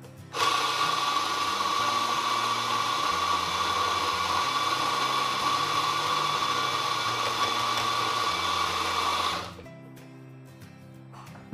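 Electric coffee grinder grinding espresso beans, running steadily for about nine seconds with a constant high hum. It starts and cuts off abruptly.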